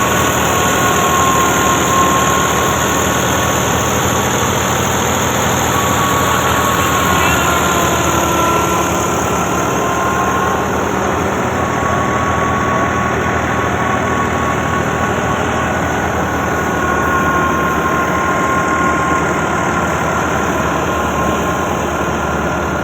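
Wheat-harvesting machine running steadily at close range: a loud, even engine drone with a constant thin whine above it.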